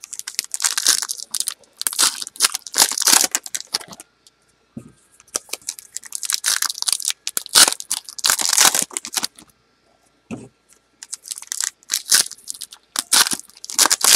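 Trading-card pack wrappers being torn open and crinkled, in three bouts of rustling with short pauses between them.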